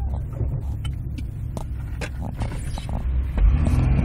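Vehicle engine and tyres rumbling inside the cab on a rough snowy road, with scattered knocks and rattles. Near the end there is a thump, and the engine note comes up louder and steadier.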